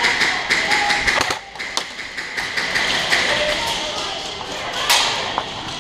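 Scattered sharp clicks and taps at an irregular pace, with a louder click about five seconds in. Faint voices can be heard in the background.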